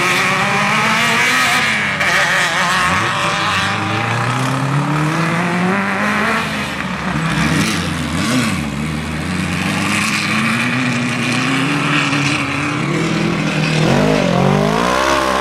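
Off-road racing buggy engines revving hard as they come down a gravel track, the pitch rising and dropping over and over with throttle and gear changes. Near the end a different off-road vehicle's engine revs up sharply.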